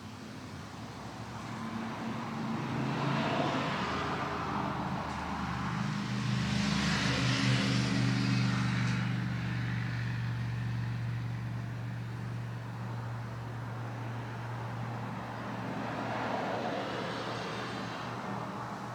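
Road traffic passing: three swells of vehicle noise that build and fade, over a steady low engine hum.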